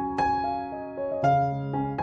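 Soft piano background music: single notes struck every half second or so over held chords.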